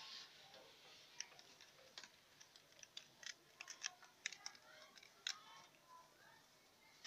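Young rabbits chewing and rustling leafy greens: faint, irregular, crisp clicks and crunches.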